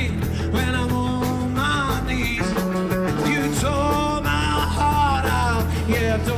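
Rock band music with a man singing over a steady bass.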